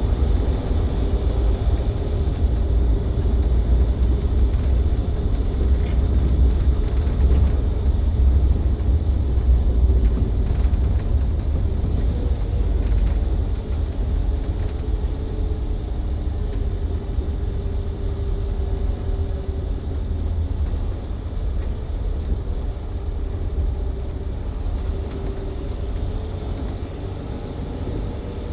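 A Mercedes-Benz Citaro C2 LE hybrid bus with a Voith automatic gearbox driving in town, heard from inside the cabin. Its diesel engine and drivetrain make a steady deep rumble with a faint whine that drifts in pitch, along with light rattling clicks. The sound eases off slightly in the second half.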